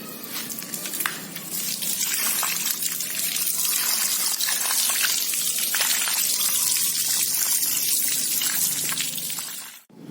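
Water spraying from a hose onto a motorcycle engine to rinse it. The spray builds about a second in, runs steadily, and cuts off suddenly near the end.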